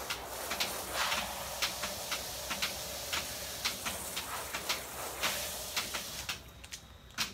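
Garden hose spray nozzle spraying water onto wet ground fabric and a plug tray: a steady hiss of spray with crackling splatter. The spray stops a second or so before the end, followed by a single click.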